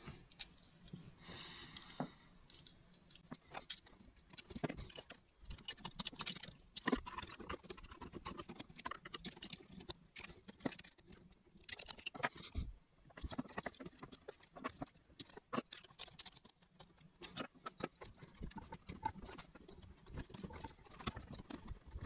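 Faint, irregular clicks and scrapes of hands handling a flush-mount light switch insert, its plastic mechanism and steel mounting frame knocking and sliding as the switch is turned around.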